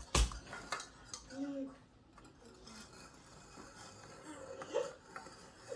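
Kitchenware knocking and clattering, with one loud knock just after the start, and a voice making a few short sounds.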